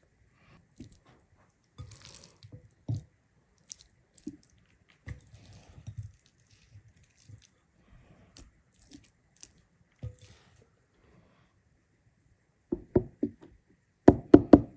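Hands squishing and kneading a wet food filling in a glass bowl and packing it into a hollowed pumpkin: soft squelches and light scattered clicks. Near the end comes a quick run of sharper knocks as rice is spooned in.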